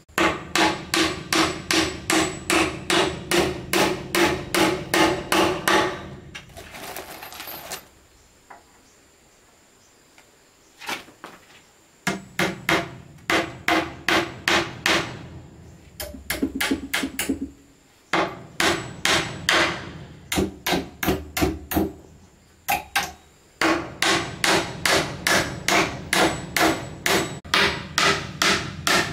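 Hammer blows on wood, fast and even at about three to four a second, each with a short ring, in runs broken by brief pauses. A short scraping sound comes between the first and second runs.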